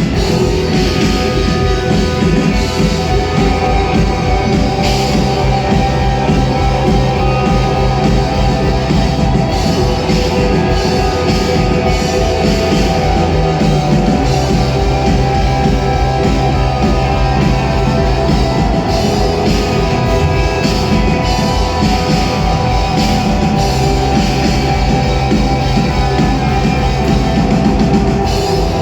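Rock band playing live: drum kit and guitars in a loud, dense, continuous heavy rock passage with a steady beat.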